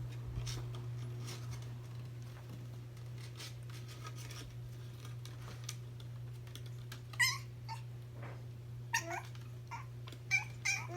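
Puppy whimpering in short, high squeaks, several in quick succession from about seven seconds in; before that only faint clicks over a steady low hum.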